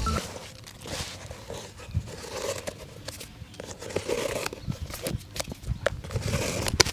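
Shoe-shine handling sounds: scattered light taps and clicks over a soft rustle, with one sharper click near the end.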